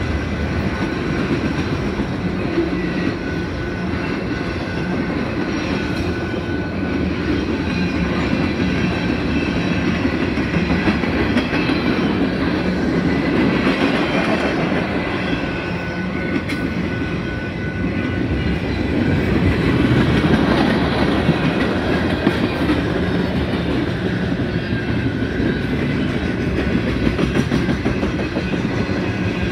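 Freight train cars rolling steadily past at a grade crossing: a continuous rumble of wheels on rail, with the clickety-clack of wheels over rail joints.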